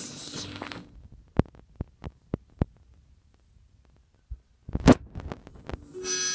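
Bumper sound effects: a fading swish, then five short sharp thumps in quick succession, a quiet pause, and one loud hit, with music starting near the end.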